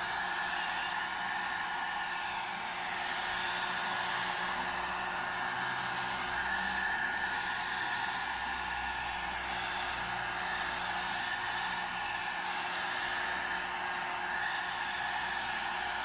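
Electric heat gun running steadily, its fan giving an even rush of air with a faint steady whine, as it heats the edge of a car side-mirror lens to loosen it for removal.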